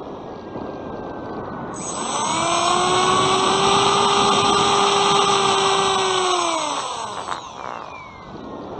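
Bixler 2's electric brushless motor and pusher propeller whining under throttle, heard from the onboard camera. It comes in about two seconds in, holds at a steady pitch, then winds down as the throttle is cut about seven seconds in. Wind rushing over the airframe and microphone fills the rest, as the plane glides.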